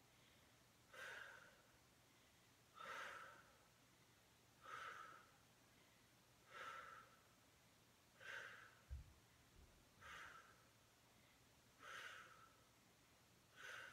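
A woman breathing out in a steady rhythm, one faint exhale about every two seconds, in time with slow banded side-lying leg lifts. A soft low thump comes about nine seconds in.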